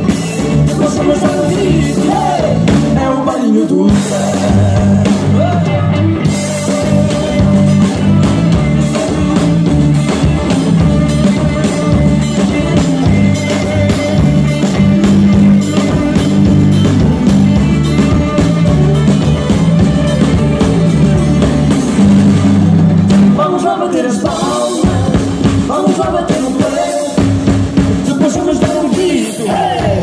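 Live band playing amplified dance music with accordion, electric guitar, keyboard and drum kit over a steady pulsing bass line. A man sings into a microphone near the start and again from a little before the end, with a mostly instrumental stretch between.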